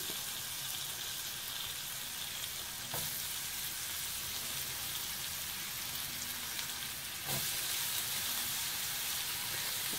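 Chicken of the woods mushroom pieces frying in hot butter in a non-stick pan: a steady sizzle that gets louder in two steps, about three and about seven seconds in, as more pieces go into the pan.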